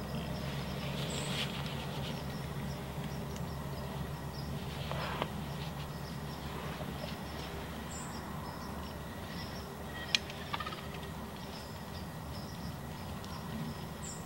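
Quiet woodland ambience: a steady low hum under faint, scattered high chirps, with one sharp click about ten seconds in and a couple of smaller clicks just after.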